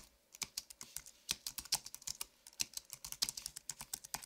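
Computer keyboard typing: quick, uneven key clicks, several a second, used as a typing sound effect for on-screen text.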